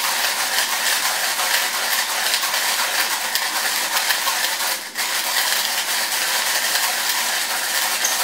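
Orphan Espresso LIDO3 manual burr grinder being cranked steadily, coffee beans crunching and crackling between the burrs at a fine espresso setting, heavy going to turn. The crunching breaks off briefly about five seconds in, then carries on.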